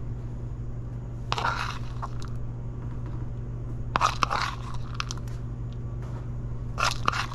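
A metal teaspoon scooping chopped pecans out of a plastic bowl: three brief crunching scrapes, roughly every two and a half seconds, over a steady low hum.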